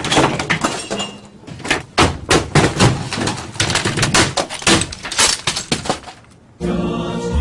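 A rapid run of crashes, smashing and clattering impacts as office equipment and desk objects are knocked over and broken, lasting about six and a half seconds. The music jingle comes back in near the end.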